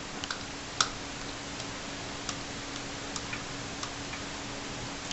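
Faucet dripping into a sink: single drops land as short sharp ticks at uneven intervals, about one to two a second, over a faint steady hum.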